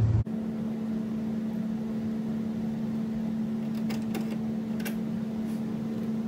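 Steady machine hum at one unchanging pitch, with a few light clicks about four to five seconds in as the golf cart's leaf-spring bracket is handled and fitted.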